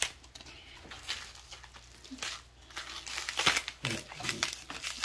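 Green onion stalks being cut and handled over a pot of raw vegetables: crisp snips and leafy rustling, the loudest about three and a half seconds in.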